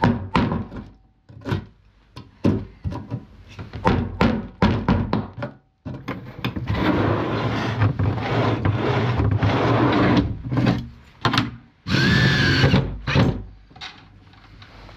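Workshop sounds of a wooden drawer lid being fitted with hinges: a string of knocks and thunks on wood, a few seconds of steady rasping tool noise, and a short power-tool whine about twelve seconds in.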